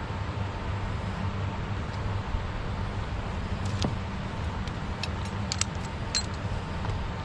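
Steady rush of a flowing river. About halfway through comes a scatter of small sharp clicks and rattles as a multi-hook fishing line and its catch are handled at a metal basin.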